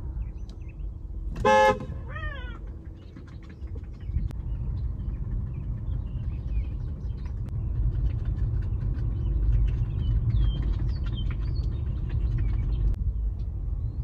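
A car horn gives one short toot about a second and a half in, followed at once by a short meow that rises and then falls. A steady low rumble runs underneath, with faint high chirps later on.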